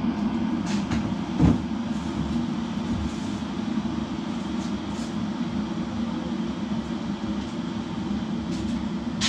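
A steady low hum of kitchen background noise, with a few light clicks and knocks as vegetables are taken out of the fridge; one louder knock comes about a second and a half in.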